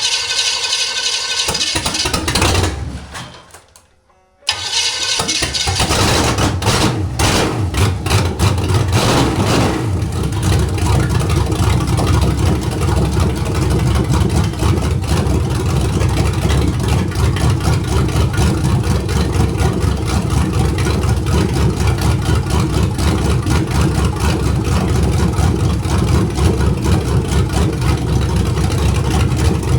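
Chevy 350 small-block V8 starting cold, running for a couple of seconds and dying away, then restarting about four seconds in. It stumbles unevenly for a few seconds before settling into a steady cold idle, set by the carburettor's cold idle screw turned in half a turn.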